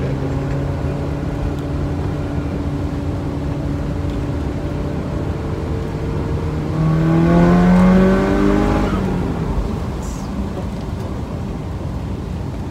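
Turbocharged four-cylinder engine of a stage 3 Audi A4 with a JHM TD05 20G turbo, heard from inside the cabin. It cruises steadily, then about seven seconds in the note gets louder and climbs in pitch for a couple of seconds in a short pull, before dropping back to steady cruising.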